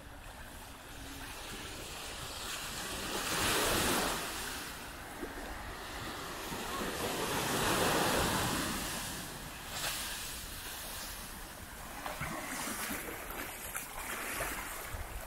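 Sea waves breaking and washing up a sandy beach, surging twice, about four seconds in and again near eight seconds, then in smaller swells. Wind rumbles on the microphone underneath.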